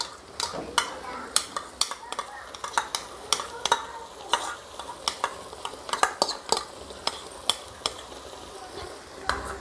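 Spiced tomato and garlic gravy sizzling in a hot non-stick wok as chilli garlic sauce is scraped in from a small bowl, with many sharp, irregular clicks and pops over the frying.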